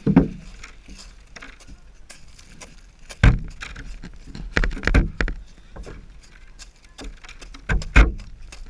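Plastic sled scraping along over thin crusty snow and frozen grass, with several loud knocks and bumps: one just after the start, one about three seconds in, a cluster around five seconds and another near the end.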